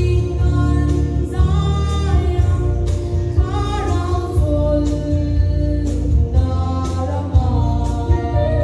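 A girl sings a gospel song into a handheld microphone over a recorded backing track with a strong bass and steady beat, amplified through the church's loudspeakers.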